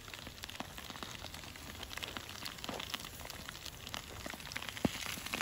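Foil-wrapped vegetables and a potato cooking over hot charcoal: a steady sizzling hiss with irregular sharp crackles and pops, one of them louder near the end.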